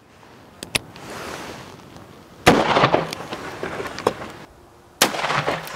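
A single .44 Magnum gunshot about two and a half seconds in: a loud crack followed by a rumbling echo that dies away over a couple of seconds. A second, quieter sharp sound follows near the end.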